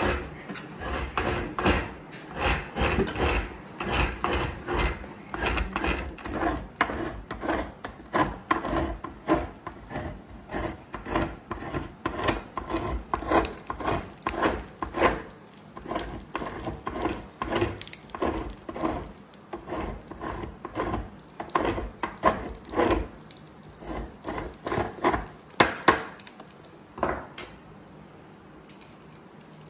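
An idiyappam (string hopper) press worked by hand, pushing rice dough through its die in repeated rubbing strokes, about one or two a second. The strokes stop shortly before the end.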